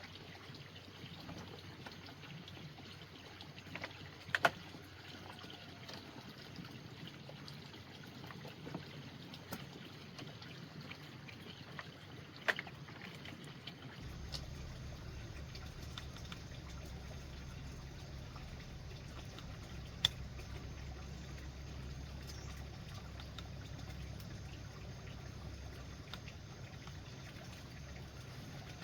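Steady trickling water, broken by a few sharp clicks or knocks. A low hum comes in about halfway through.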